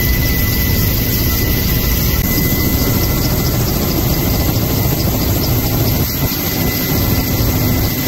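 Helicopter engine and rotor running steadily, heard on board: a loud, even drone heavy in the low end with a faint steady whine over it.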